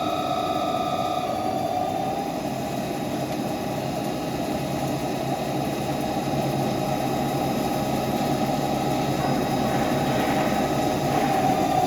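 CNC lathe running while turning a pinion: a steady machine hum and noise with a whine that stops about a second in and a lower tone that sets in around two seconds in.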